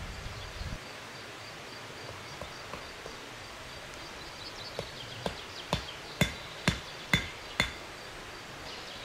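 A run of about seven sharp strikes of a hatchet on wood, about two a second, starting about five seconds in and growing louder, each with a short ringing tail.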